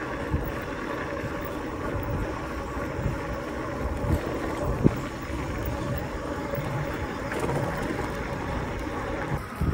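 Wind rushing over the microphone and rolling road noise from a fat-tire electric bike cruising along an asphalt road, with a sharp knock about five seconds in and a few smaller ones.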